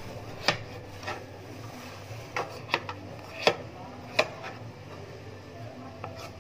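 Kitchen knife paring the skin off a green papaya in downward strokes, the blade knocking on the cutting board at the end of each stroke. About eight sharp, irregular taps with faint scraping between them.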